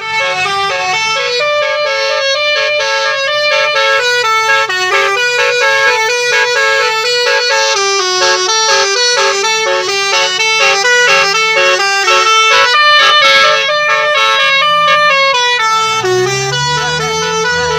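Basuri telolet bus horn, a multi-trumpet air horn, playing a melody of stepped tones that change several times a second, loud and without pause. Near the end a low tone glides up and down underneath.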